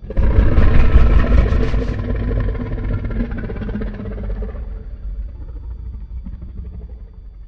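Pliosaurus creature sound effect: a deep, rough call that starts suddenly, is loudest for its first two seconds, then fades slowly over the next several seconds.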